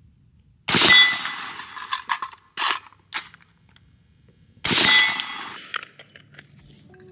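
Two shots from a suppressed 11.5-inch AR-15 short-barrel rifle, about four seconds apart, each with the ringing clang of a steel plate target being hit.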